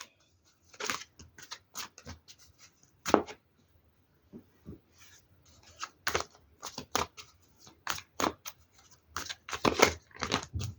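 Tarot cards being shuffled by hand: an irregular run of short taps and clicks, sparse at first and quicker in the second half.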